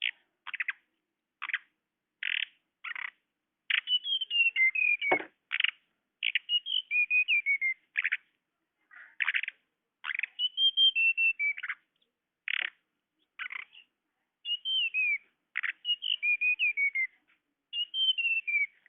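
Tledekan (flowerpecker) calls played as a bird-trapping lure: sharp, high single chips alternating with quick twittering runs that fall in pitch, repeated in clusters with short pauses.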